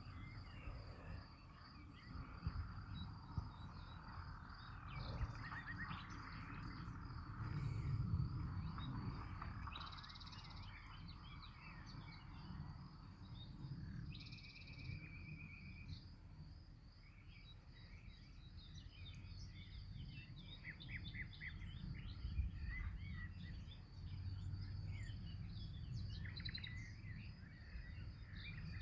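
Birds chirping and calling at intervals, one giving a short buzzy trill about halfway through, over a steady high-pitched pulsing trill and a low rumble.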